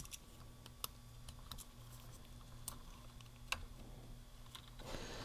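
Faint scattered clicks and taps of small plastic parts being handled, as a wiring lead and connector are fitted back onto a Husqvarna 550XP chainsaw, over a steady low hum.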